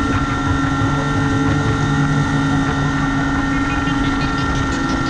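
Motorboat running at speed: a steady engine drone mixed with rushing water from the hull and wake, and wind noise.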